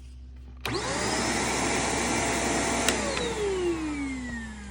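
Shark vacuum cleaner switched on about half a second in: the motor spins up and runs steadily. About three seconds in there is a click, and the motor winds down with a falling whine.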